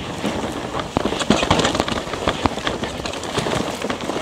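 Rocky Mountain Altitude PowerPlay e-mountain bike descending a dry, loose dirt singletrack: tyres crunching over dirt and small rocks, with the bike's chain and frame rattling in quick, irregular clicks and knocks.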